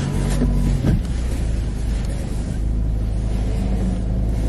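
Car cabin noise while driving: the engine runs and a steady low rumble carries through, with a faint steady hum in the first second.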